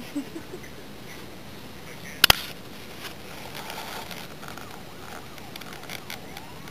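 Quiet room tone with a few faint rustles, broken by one sharp double click about two seconds in.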